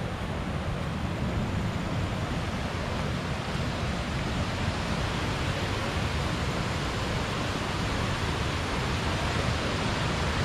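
Steady rushing of a waterfall and its river, growing slightly louder.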